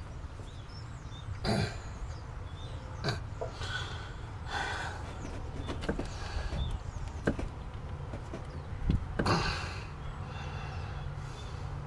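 Scattered clicks, knocks and short scrapes of hand work on metal under the hood of a truck as a radiator hose clamp is tightened, over a low steady hum.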